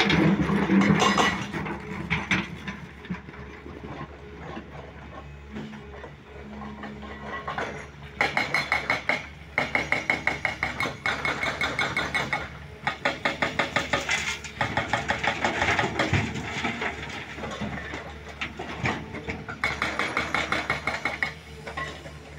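Heavy diesel machinery running, with several stretches of rapid, even knocking, about four blows a second.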